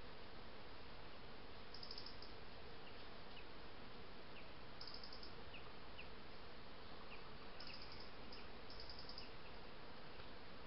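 An insect chirping in short, high, buzzy bursts about every three seconds, over a steady hiss from a trail camera's microphone.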